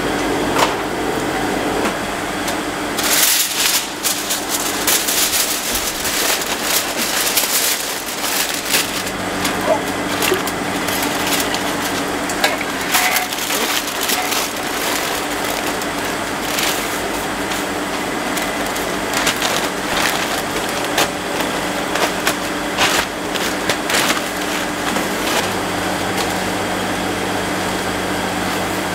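Aluminium foil and paper crinkling and rustling in irregular bursts as chicken is wrapped by hand, over a steady low hum.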